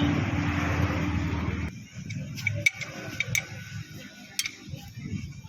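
A loud steady noise stops abruptly under two seconds in. Then come a few separate sharp metallic clicks as a spanner works loose the gearbox's gear-oil filler plug.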